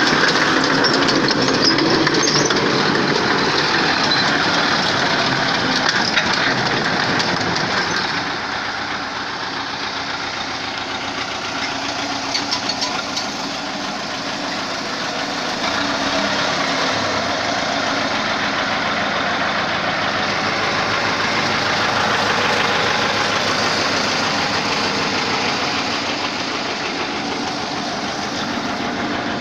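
A motor vehicle engine running steadily. It drops a little about eight seconds in and picks up again around sixteen seconds.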